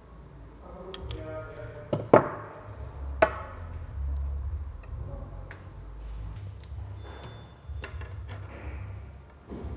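Metal clinks and taps as brake line tubing and hand tools are handled: two sharp, louder clinks with a short ring about two and three seconds in, among fainter ticks, over a low steady hum.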